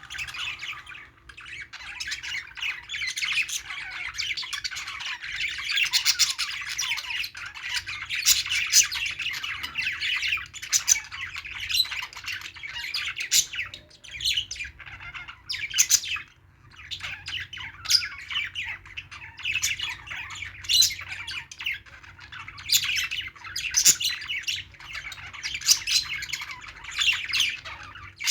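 Several pet budgerigars chattering and chirping without pause, with sharp loud squawks every second or two.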